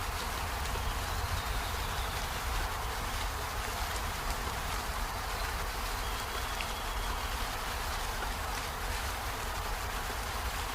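Steady rain falling on peony flowers and leaves: an even hiss over a low rumble.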